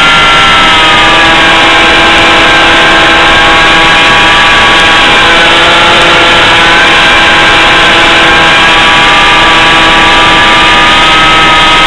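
Electric motor of a BlitzRCWorks Sky Surfer RC plane whining in flight over a loud, steady rushing noise. Its pitch falls a few seconds in and rises again later.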